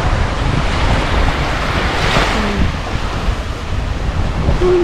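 Wind buffeting the microphone over small waves washing onto a sandy shore, with a swell of surf hiss about two seconds in.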